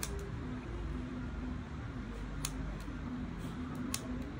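A few sharp snips of small scissors trimming a doll's hair, irregularly spaced, the clearest at the start, midway and near the end. Under them runs a steady low hum and faint music.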